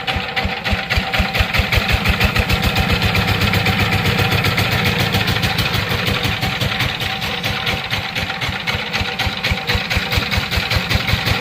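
Sifang single-cylinder diesel engine of a power tiller running steadily, a rapid, even chug of firing strokes.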